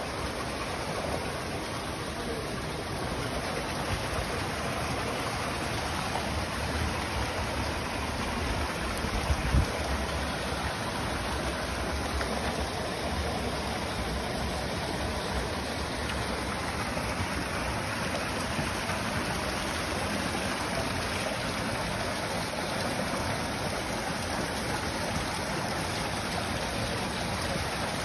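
Steady rushing of running water at a trout pond, with trout churning the surface. A brief low thump comes about a third of the way in.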